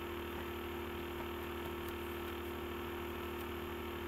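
Steady electrical hum, an unchanging mains-type buzz in the recording.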